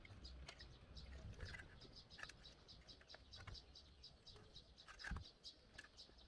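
Near silence with faint, rapidly repeated bird chirps in the background, a few a second. Two or three soft handling knocks are heard, the clearest about five seconds in.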